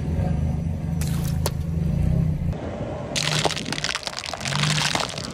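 Car engine running low with two sharp snaps about a second in. Then, from about three seconds in, a long dense crackling and crunching as a car tyre rolls over Kinder Surprise chocolate eggs and their plastic packaging, crushing them.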